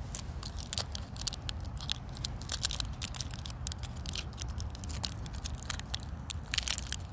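Fingers picking and crinkling at the foil backing of a blister-packed solid fuel cube, giving a run of small irregular clicks and crackles.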